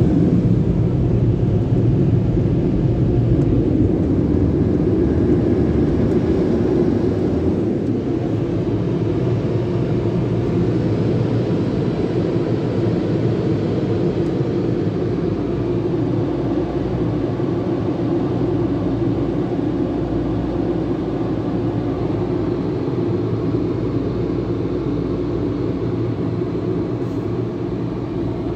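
Car wash tunnel dryer blowers running with a steady, loud roar and low hum, heard from inside the car. The sound slowly fades as the car pulls away from the tunnel exit.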